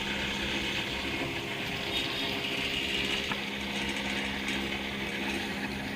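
Electric jigsaw running steadily, cutting plywood: a constant motor hum with a hissing blade noise over it.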